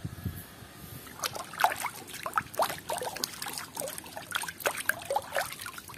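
Water splashing and sloshing in a plastic tub as a hand swishes a plastic toy through it. Irregular small splashes and drips start about a second in.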